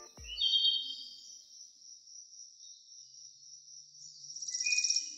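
High-pitched insect-like trilling: a steady thin buzz with short chirps, swelling into a fast pulsing trill near the end.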